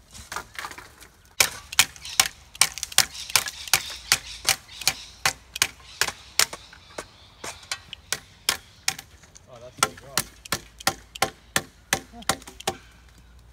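Rapid chopping at a green bamboo pole: sharp wooden knocks about two to three a second, starting a little over a second in and going on almost to the end.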